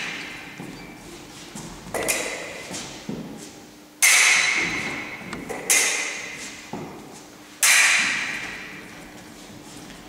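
Foil blades clashing and fencers' feet striking the wooden floor during footwork and lunges: several sharp metallic strikes, the loudest at about two, four, six and eight seconds in, each ringing out in the hall's echo.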